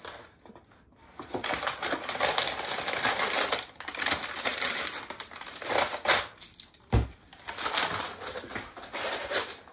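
Brown kraft packing paper rustling and crinkling as it is pulled out of a cardboard box, with a dull thump about seven seconds in.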